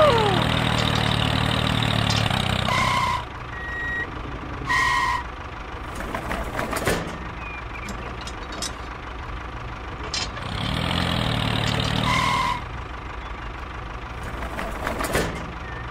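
Engine sound of a toy model tractor, a steady diesel-like drone that runs for about three seconds and cuts out, then runs again for about two seconds near the middle. Short high beeps come just before each stop and once about five seconds in. Between the two spells it is quieter, with a few clicks.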